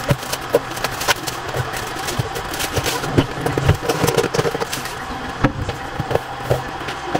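Cardboard drink cartons being handled and stacked, giving irregular light knocks and taps, over a steady mechanical hum.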